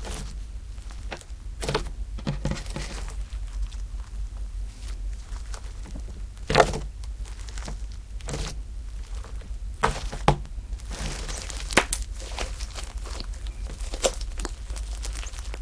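Slime being pressed and squished by hand, giving irregular sticky pops and crackles over a low steady hum, the sharpest pop about six and a half seconds in.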